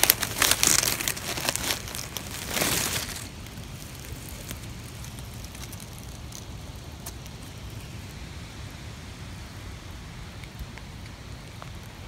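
Dry leaf litter crackling and rustling as a hand brushes through it, in a dense burst of crackles for about the first three seconds. After that there is only steady low background noise.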